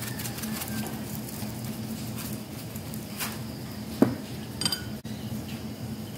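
Kitchen handling sounds as hands season a raw chicken in a stainless steel bowl: light taps and scrapes, one sharp knock about four seconds in and a brief metallic clink right after, over a steady low hum.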